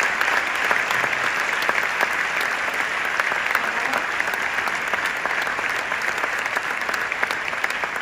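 Audience applauding steadily, many hands clapping at once, easing slightly near the end.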